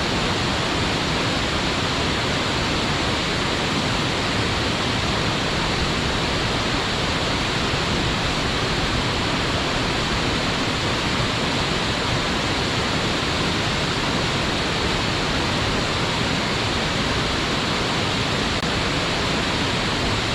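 Waterfall: a steady, even rush of falling water, loud and unchanging.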